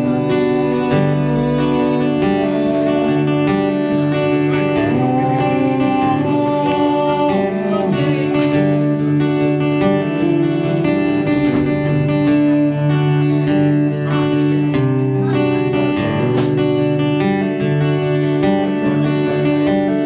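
Steel-string acoustic guitar playing live, strumming a steady chord pattern.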